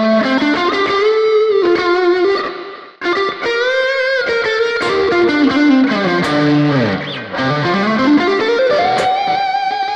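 PRS Silver Sky SE electric guitar playing a lead line through an amp-simulator preset with two stacked Tube Screamer-style overdrives on. It plays sustained single notes with bends, with a short break about three seconds in, and near the end a long glide down in pitch and back up.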